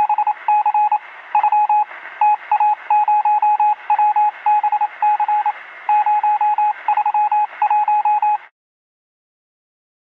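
Electronic beeping sound effect: rapid short beeps at a single pitch in irregular groups, like Morse code or telephone signalling, over a thin hiss. It stops about eight and a half seconds in.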